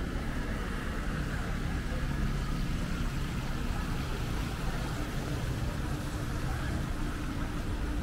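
Steady low rumble of outdoor background noise, with a faint steady hum joining about five seconds in.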